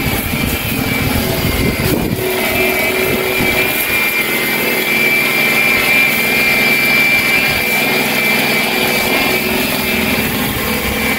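Electric angle grinder with a sanding disc running against bare steel of a van's front bumper, sanding it down before rust-proofing and paint. A steady high-pitched whine over a grinding rasp.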